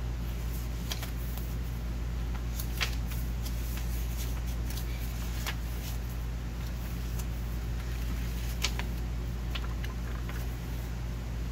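Paper pages of a handmade junk journal being handled and turned: soft rustles with a few sharp paper snaps, the clearest about three, five and a half and nine seconds in. A steady low hum runs underneath.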